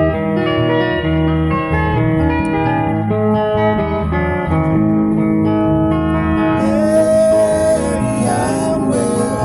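Live band music led by plucked guitar over a steady bass line. A singing voice comes in about two-thirds of the way through, along with a bright high shimmer.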